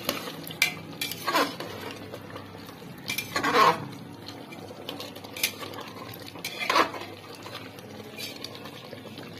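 A spatula stirring chicken pieces in thick masala inside an open pressure cooker, scraping and knocking against the pot's side in about half a dozen separate strokes at irregular intervals, the loudest about three and a half seconds in.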